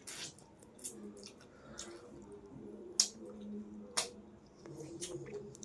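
Close-up sounds of a person eating chicken korma with roti: wet, squishy chewing with irregular sharp lip smacks and clicks, the loudest about three and four seconds in.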